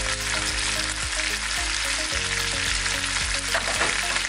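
Peri peri chicken sizzling steadily in oil in a ridged grill pan on the stove, near the end of its cooking.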